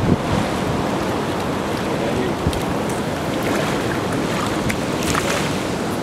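Surf breaking on a rocky shore: a steady wash of waves.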